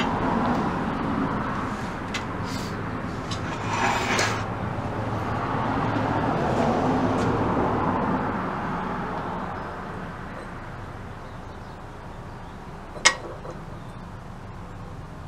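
Outdoor background noise, a broad rush that swells over the first eight seconds and then fades, with one sharp click about thirteen seconds in.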